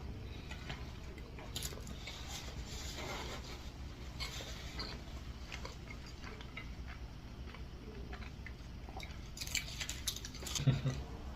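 Close-miked eating sounds: chewing, with small clicks and taps of utensils on dishes over a steady low room hum. The clicks thicken about nine seconds in, and a couple of louder low thumps come near the end.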